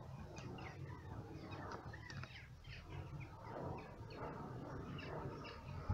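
Small birds chirping, with many short chirps one after another, over a faint low rumble.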